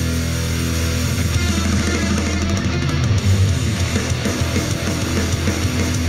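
Guitar-driven alternative/punk rock song playing through a JBL Flip 3 portable Bluetooth speaker in a sound test.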